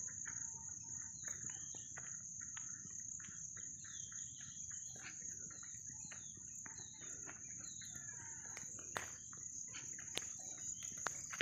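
Outdoor garden ambience: many short bird chirps and calls over a continuous high-pitched insect drone, with a low rumble underneath and a few sharp clicks near the end.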